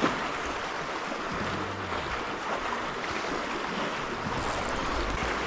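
Steady wind and sea noise by the water, with wind rushing on the microphone.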